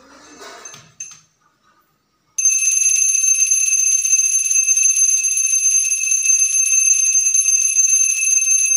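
Puja hand bell rung rapidly and without pause during worship at a Ganesh altar, a loud, steady ringing that starts abruptly about two and a half seconds in. Before that there is a brief soft rustle.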